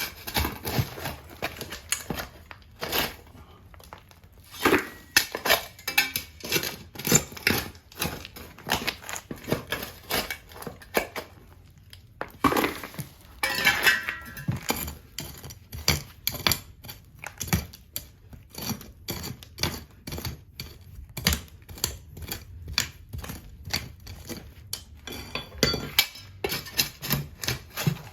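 Hand tools digging or chipping, with many irregular sharp clinks, knocks and scrapes of metal against hard material. A longer stretch of scraping comes about halfway through.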